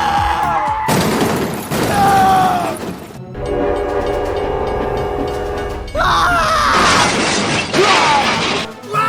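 A run of loud sound effects. A squealing tone gives way about a second in to a crashing, shattering noise. Then a long steady horn-like tone is held for a few seconds, and another loud noisy crash with sliding tones comes near the end.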